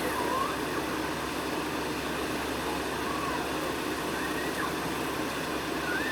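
Steady road-traffic and engine noise, with a few faint wavering high tones over it.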